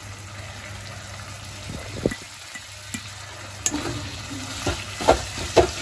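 Chicken and masala frying with a low, steady sizzle in a steel kadai. A few light clicks come in the first seconds, then from about four seconds in a metal spatula scrapes and knocks against the pan as ground spice mix is stirred in.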